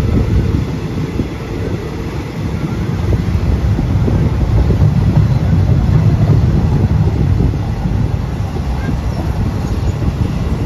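Wheel-on-rail and wind noise of a moving passenger train, heard from its open doorway, with a freight train's diesel locomotive and hopper wagons passing on the adjacent track. The noise swells through the middle as the freight train closes in.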